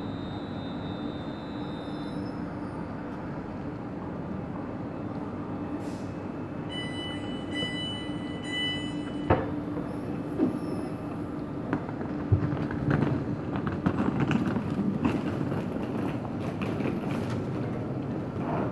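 Electric multiple-unit train standing at a platform with a steady hum. About seven seconds in, a door warning beeps for about two seconds and ends in a thud as the doors shut, followed by scattered knocks and clatter.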